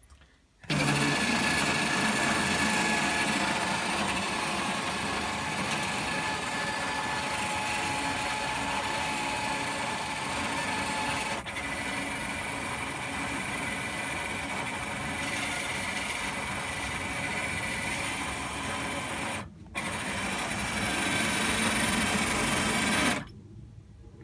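R2-D2 dome drive motor running, its 3D-printed plastic spur gear turning the dome's plastic ring gear: a steady whine over gear noise. The whine changes pitch at a short break about halfway, drops out briefly later, and stops about a second before the end.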